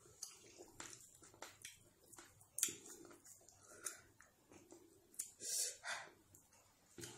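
Close-up mouth sounds of a person eating fufu and fish by hand: soft chewing with wet lip smacks and small clicks, and a couple of louder breathy mouth noises about two and a half and five and a half seconds in.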